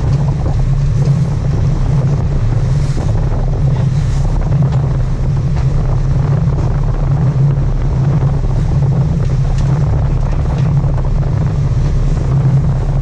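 Fishing boat's engine running steadily with a constant low drone, with wind buffeting the microphone.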